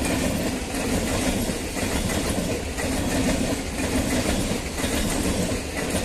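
Electric multiple unit (EMU) suburban local train running past close by, its cars and wheels rattling steadily on the track.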